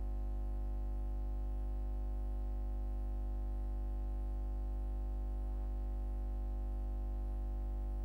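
A steady low electrical hum with a buzz of evenly spaced overtones that never changes: hum on the soundtrack of a silent film rather than any sound from the sawmill.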